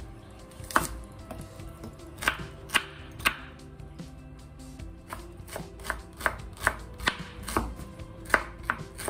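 Santoku knife chopping red onion on a bamboo cutting board: a few separate knocks of the blade on the board, then from about halfway a quicker run of knocks, about two a second.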